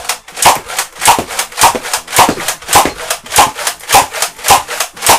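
Nerf Rival Artemis foam-ball blaster slam-firing: the grip is pumped again and again with the trigger held, giving a loud, regular run of pops with the clack of each pump stroke, a little under two shots a second.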